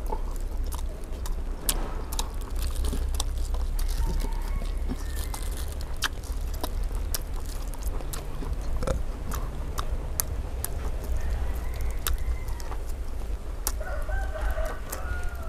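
Roosters crowing a few times, the clearest and loudest crow near the end, over wet chewing and lip-smacking clicks close to the microphone and a steady low rumble.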